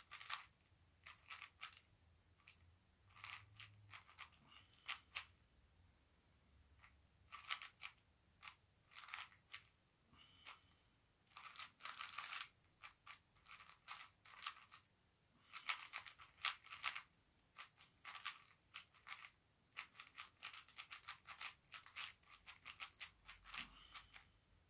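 A plastic 4x4 speed cube being turned fast by hand: faint runs of quick clicks and clacks as its layers snap round, broken by short pauses.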